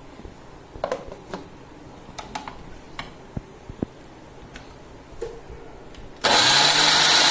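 A few knocks and clicks as the steel mixer-grinder jar and its lid are handled, then about six seconds in the mixer grinder's motor switches on and runs loudly and steadily, grinding grated coconut into the rice, almond and jaggery powder.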